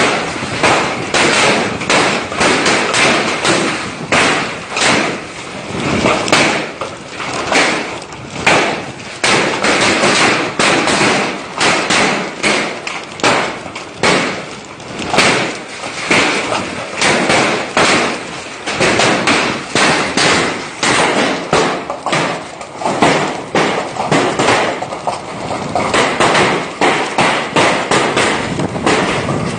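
Large hailstones pelting down in a heavy hailstorm: a dense, irregular barrage of thuds and cracks over the hiss of heavy rain.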